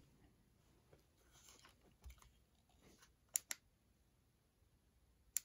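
Button clicks on a Cuddeback K series cellular trail camera's keypad: a quick pair of clicks about three and a half seconds in and one more near the end, over near silence.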